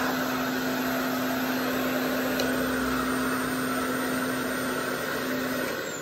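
RevAir reverse-air hair dryer running, a steady vacuum-like rush of suction and airflow with a constant motor hum. It shuts off near the end and the sound starts to die away.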